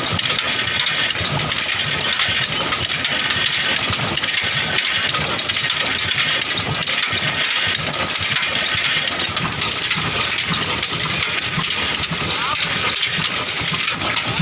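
Old 18 hp stationary diesel engine running steadily, a regular low beat under a constant loud clatter and hiss.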